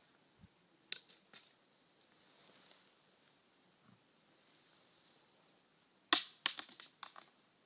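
Dry leaves crackling and rustling in short sharp bursts, once or twice about a second in and then a loud cluster about six seconds in, over a steady high insect trill.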